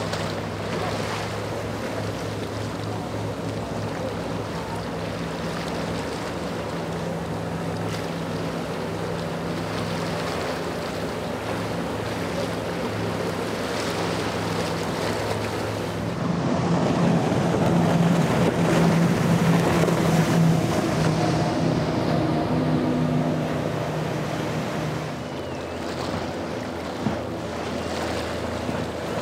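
Outboard motors of center-console boats running at speed, a steady engine drone over the rush of hull spray and waves. It grows louder for a few seconds past the middle.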